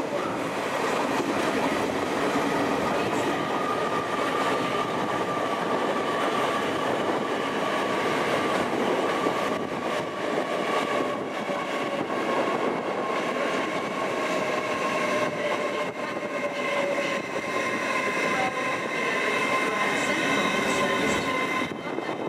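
LNER Azuma high-speed electric multiple unit running slowly past, its wheels rumbling over the track with a steady whine that slowly falls in pitch.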